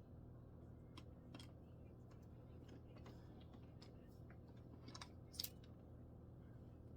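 Faint scattered clicks and taps of string trimmer parts and screws being handled and fitted together by hand, with one sharper click about five and a half seconds in.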